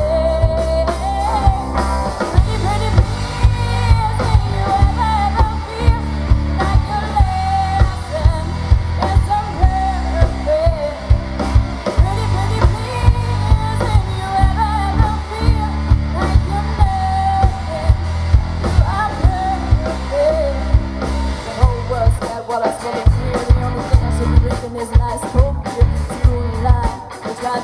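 A live rock band playing a pop-rock song, with a female voice singing the melody over a steady drum beat, bass and guitar.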